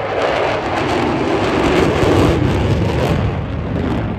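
Jet engine roar from the Blue Angels' F/A-18 Super Hornets flying in diamond formation: a loud, steady rushing noise that swells about two seconds in and eases slightly near the end.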